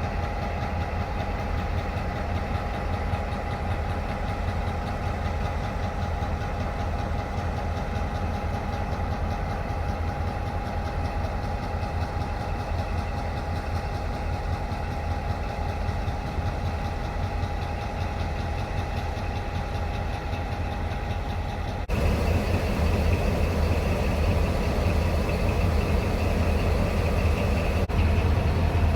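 Diesel locomotive engines running steadily at low revs, a deep hum with a steady whine above it. About 22 seconds in the sound abruptly steps louder.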